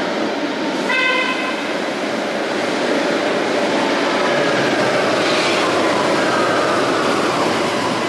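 Light rail train pulling into an underground station, with a steady rolling rumble of wheels on rail. A short horn toot comes about a second in, and a falling whine follows as the train slows along the platform.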